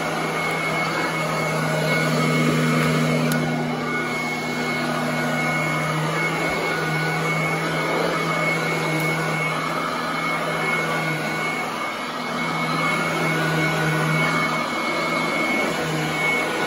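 Royal commercial upright vacuum cleaner running on carpet as it is pushed back and forth, making a steady motor hum with a thin high whine above it.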